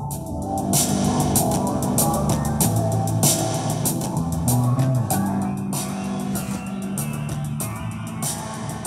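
Rock music with guitar, bass and a drum kit, played from a smartphone over Bluetooth through a small HP DHE-6002 USB-powered soundbar.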